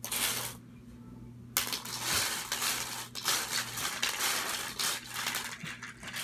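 Small plastic toy kitchen pieces rustling, scraping and clattering as a child stirs them around in a plastic basket, with a brief lull about half a second in.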